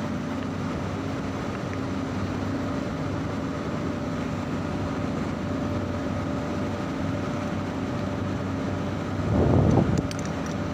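Steady mechanical hum of running machinery holding a few steady tones, like air-conditioning plant running nearby. A brief louder noise comes about nine seconds in.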